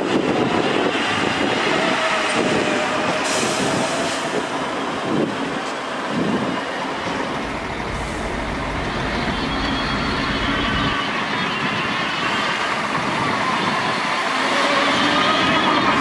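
Heavy diesel engines running: a dump truck's engine works under load as its hydraulic hoist raises the loaded bed to tip dirt, with a bulldozer's engine running close by. The engine pitch slowly rises and falls.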